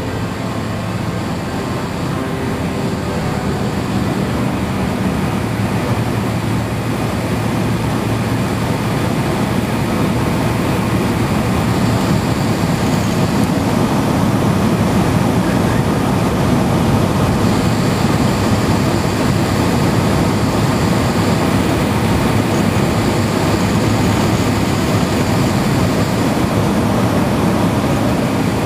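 Cessna light aircraft in flight: the piston engine and propeller give a steady drone with rushing wind, growing gradually louder.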